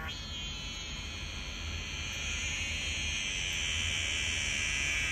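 Cicada buzzing: a steady, high-pitched buzz that slowly grows louder.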